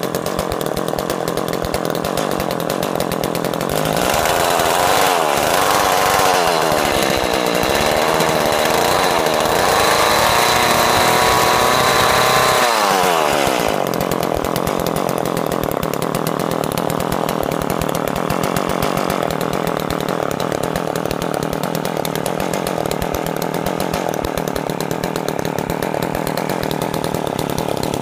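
Ice Master gas-powered ice auger's two-stroke engine running. It starts at idle, then from about four seconds in it is revved up and down several times for about ten seconds, before dropping back to a steady idle.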